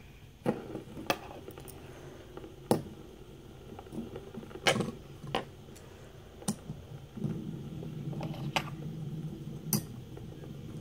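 Fidget spinners clicking and knocking against each other as they are stacked into a tower: about eight separate sharp clicks. About seven seconds in, a steady low whir starts, a spinner turning on its bearing.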